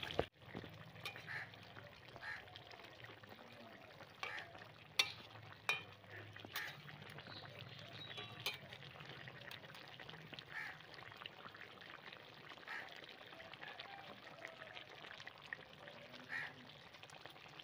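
Faint bubbling of a fish and okra curry simmering in a karai, with a metal spatula stirring and knocking against the pan now and then.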